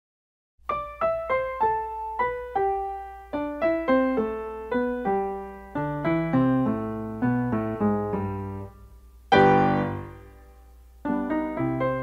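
Background piano music: a melody of struck notes over lower notes, with one loud chord about three-quarters of the way through, a brief lull, and then the playing resumes.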